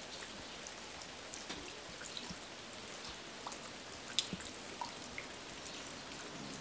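Steady light rain, with individual drops ticking close by at irregular moments; one drop is sharper about four seconds in.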